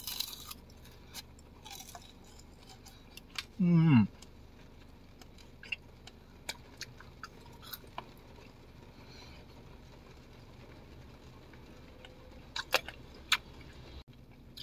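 Biting and chewing a sugar-coated candied-fruit skewer (tanghulu): a crunch right at the start, then sparse small chewing clicks. A short 'mm' falling in pitch comes about four seconds in, and a few sharp clicks sound near the end.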